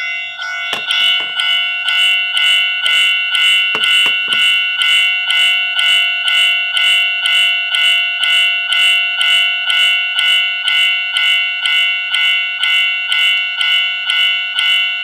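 A sound-making capsule toy's tiny speaker playing a recorded alarm bell: a loud, continuous electronic ringing that pulses about two to three times a second. A few knocks from handling the toy come near the start.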